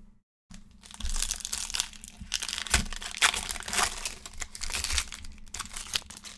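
Foil wrapper of a Panini Chronicles football card pack crinkling as it is opened and pulled off the cards. It is a dense run of crackles that starts about half a second in.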